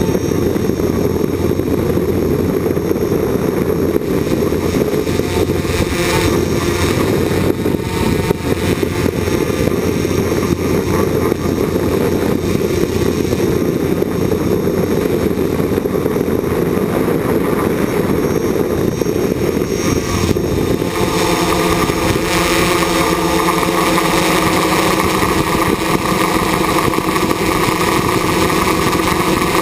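Small multirotor drone's electric motors and propellers buzzing steadily, heard from on board. About twenty seconds in, the motor tones shift and the sound becomes brighter.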